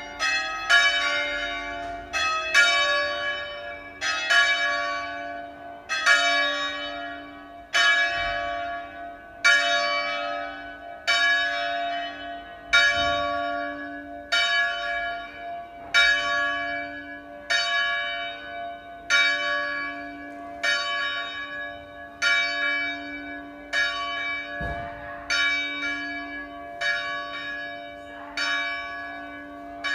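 The three smallest bells of Crema cathedral's ring, cast by Crespi in 1753, swinging 'a distesa' and striking in turn at about one stroke a second. Each note rings on into the next. The strokes grow softer over the last few seconds.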